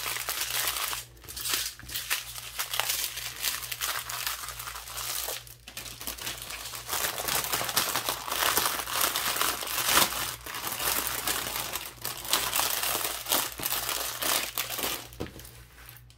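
Thin plastic bags holding packets of diamond-painting drills crinkling and rustling as they are handled, in bursts with two short pauses, dying down near the end.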